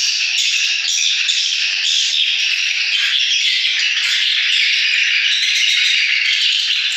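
Dense, unbroken twittering of swiftlet calls, many short high chirps overlapping at a steady level.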